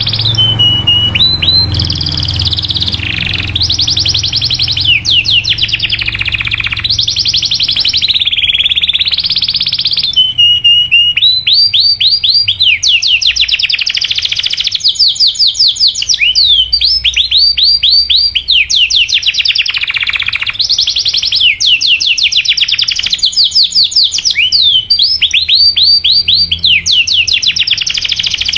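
Domestic canary singing a continuous, loud, high-pitched song of rapid trills and long rolls, made of fast repeated sweeping notes with brief changes of phrase.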